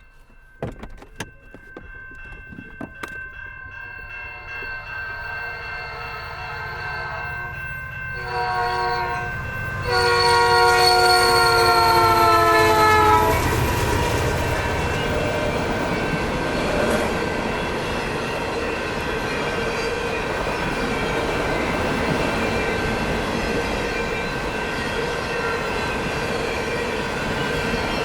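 Canadian National freight locomotive's multi-note air horn sounding as the train approaches: faint at first, then a short blast and a loud long blast whose chord drops slightly in pitch as the locomotive passes. After it, the steady rumble and wheel noise of the freight cars rolling by. A few sharp clicks sound in the first few seconds.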